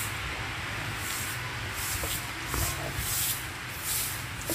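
Straw brooms sweeping leaves across paving stones: regular high swishes, about two strokes a second, over a steady low rumble.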